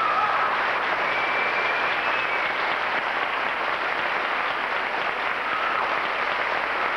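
Audience applauding steadily, with a few brief high calls from the crowd over the clapping.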